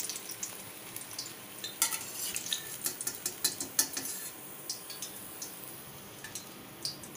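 Hot oil in a steel kadhai sizzling steadily as fried Manchurian balls are lifted out with a wire spider strainer. A run of light metal clicks and taps, the strainer against the pan, comes about two to four seconds in.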